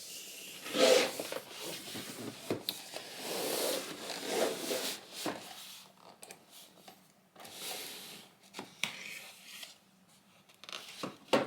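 A knife cutting open the packaging of a box: irregular scraping and rubbing strokes with small knocks. It is busiest in the first few seconds and tails off to near quiet shortly before the end.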